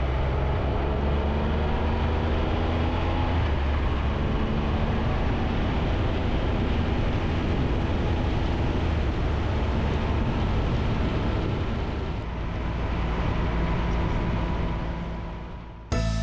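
Triumph Tiger 1200's three-cylinder engine running steadily under way, mixed with wind and road noise. It fades out near the end, and music starts just as it dies away.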